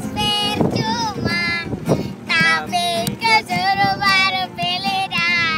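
A young girl singing in a high voice, gliding between notes and holding some of them, over the low steady hum of a boat's motor.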